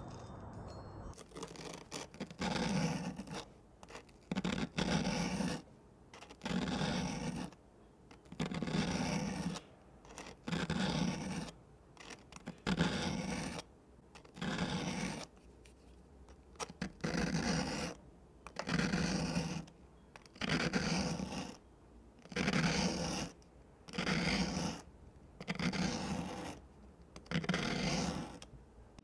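The steel spoon blade of an old Ontario Knife Co. spoon knife scraped across a red abrasive sanding disc in thirteen even strokes, each about a second long, one every two seconds or so.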